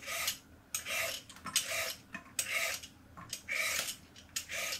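A vegetable peeler scraping along a carrot, in short repeated strokes about two a second as the peel comes off in strips.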